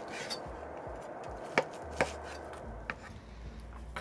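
A knife cutting through a rack of smoked pork ribs, the blade knocking down sharply about three times.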